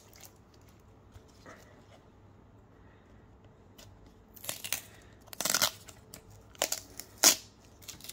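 Tape being peeled off a rigid plastic top loader that holds a trading card, in a few short pulls in the second half, the last one the loudest.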